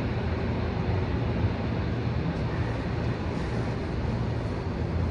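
Tokyo Metro 07 series train heard from inside the car, a steady low rumble of running noise as it moves along an underground station platform.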